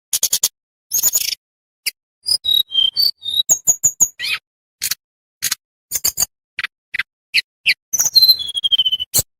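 Tledekan bambu songbird singing: rapid, sharp chips and clicks mixed with short whistled notes, and a falling whistled phrase about eight seconds in.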